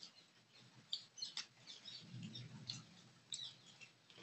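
Faint close-miked eating sounds of someone eating fish curry and rice by hand: wet chewing and lip smacks, a scatter of short clicks with a soft low chewing sound a little after halfway.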